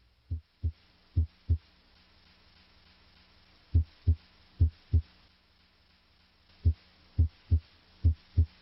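Heart sounds heard through the bell of a stethoscope at the cardiac apex: short low thumps in pairs, S1 then S2, repeating at about seventy beats a minute. There is a break of about two seconds after the first two beats, and a faint steady hum lies underneath.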